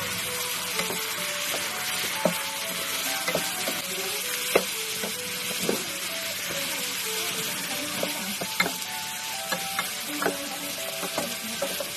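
Butter sauce of margarine, sliced onion and dark sauces sizzling steadily in an aluminium pan, with a wooden spatula stirring and scraping and giving scattered sharp clicks against the pan. Fried chicken pieces are tipped into the sauce around the middle.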